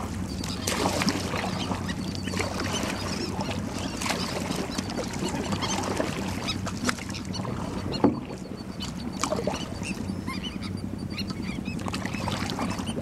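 A colony of terns calling, many short shrill cries overlapping, over the steady hum of a boat's motor.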